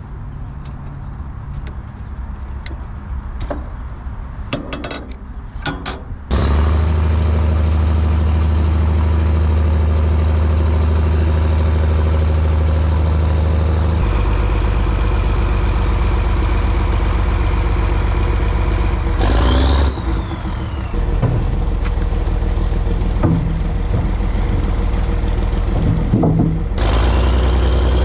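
Large diesel engine running steadily and loudly, coming in abruptly about six seconds in after a quieter stretch of scattered knocks. Near the middle comes a short hiss with a falling whine, and another brief burst follows near the end.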